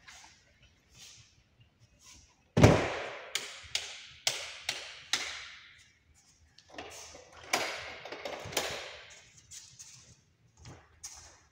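A series of sharp knocks and thuds echoing in an empty room: one heavy thud a couple of seconds in, then knocks about two a second, and a few more later on.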